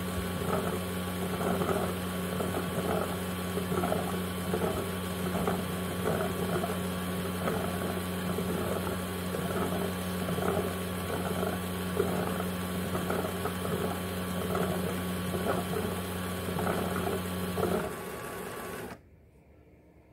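Ecovacs Deebot X1 Omni base station running a cleaning-station cycle: a steady motor hum with a rhythmic churning pulse about one and a half times a second. It drops slightly near the end and then cuts off.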